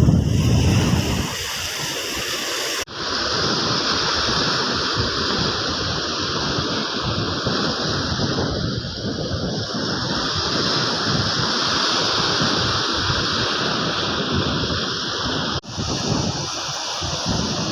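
Surf washing on a beach, with wind rumbling on the microphone at the start; the sound cuts out abruptly for an instant twice, about three seconds in and again near the end.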